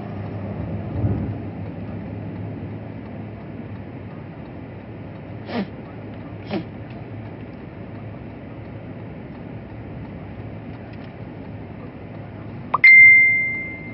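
Steady hum of a car's cabin, with two soft short clicks about a second apart midway. Near the end a sharp click is followed by a loud, single high ringing tone that fades over about a second.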